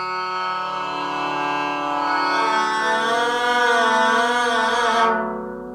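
A bow drawn across a guzheng string, sounding one long sustained note. About two seconds in the pitch begins to waver with vibrato, and the note fades near the end.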